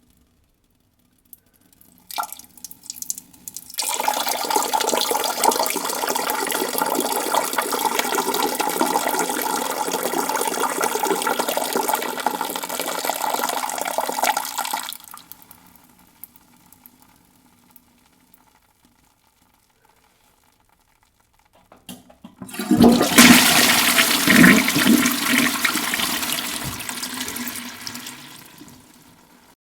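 A man urinating into a toilet bowl: a few short splashes, then a steady stream for about eleven seconds that tails off. After a pause and a couple of clicks, the toilet flushes with a loud rush of water that slowly fades as the bowl empties.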